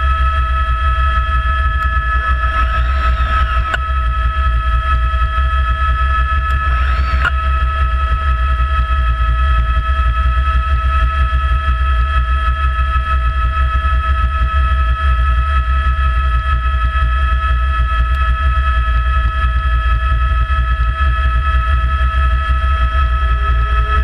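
Rescue helicopter hovering, heard from a camera mounted on its fuselage: a loud, steady rotor rumble with a high whine held on a few steady pitches. A fainter sound rises and falls over it briefly, twice, in the first few seconds.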